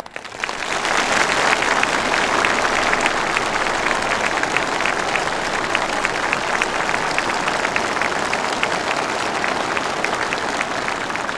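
Massed applause from a large crowd of uniformed soldiers and officers. It swells up within the first second, then holds as a steady, dense clatter of clapping.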